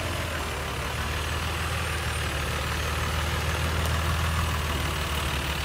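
Jeep Wrangler engine running at low revs as the Jeep crawls past over a muddy dirt trail, a steady low drone that grows slightly louder as it comes closest.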